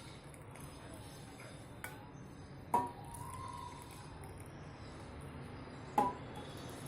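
Two sharp metallic clinks with a short ring, about three seconds apart, over a faint steady background: a metal utensil striking the cooking pan while the kadha boils down.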